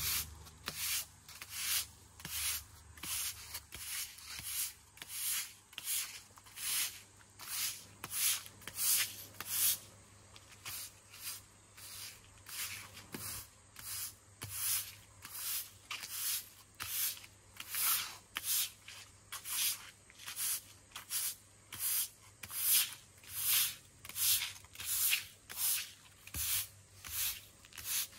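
Broom sweeping in brisk, even strokes, just under two a second.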